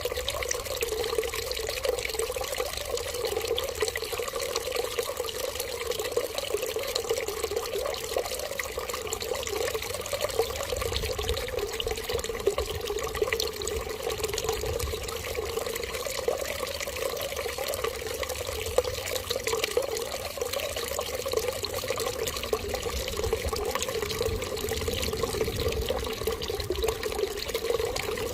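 Running water pouring in a steady, unbroken stream.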